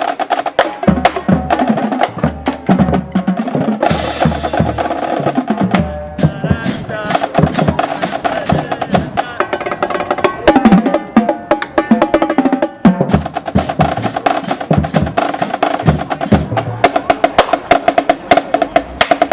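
Music with busy, rapid drum and percussion strokes over a pulsing bass line and sustained pitched notes.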